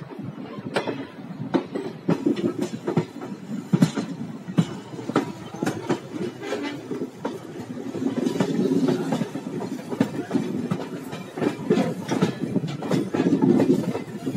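Indian Railways passenger train running on the track: a steady low rumble with many sharp, irregular clicks and knocks of the wheels over the rails.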